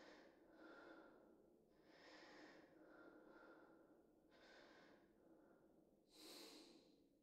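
Faint, slow breathing: about six soft breaths in and out, a second or so apart.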